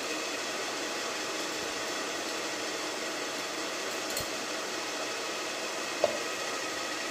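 Steady fan-like hiss of background noise, with a soft knock about four seconds in and a light click about six seconds in as the mixer-grinder jar is handled over the steel tiffin box.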